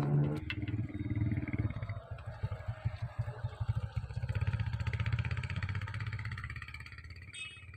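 A motorcycle engine running past, its rapid firing pulses steady through the middle and fading away toward the end.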